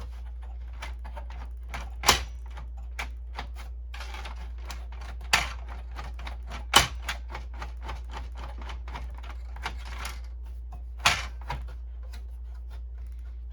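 Rapid, irregular clicking and tapping from the opened Canon Pixma printer's plastic parts and mechanism, with four louder sharp clicks, over a steady low hum.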